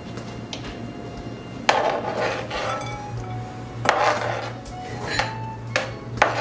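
A metal spoon scraping and knocking on a plastic cutting board as sliced chicken is pushed off into a salad bowl: a few short scrapes and clatters, the loudest nearly two and four seconds in, over soft background music.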